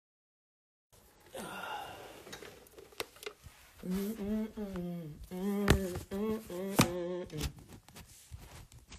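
A voice humming a tune in short held notes, stepping up and down in pitch, from about four to seven seconds in. A phone being handled knocks a few times. The sound cuts out completely for about the first second.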